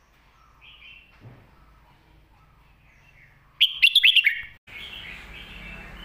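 Red-whiskered bulbul singing: a few faint notes, then about three and a half seconds in a loud, quick phrase of several downward-sliding whistled notes lasting under a second.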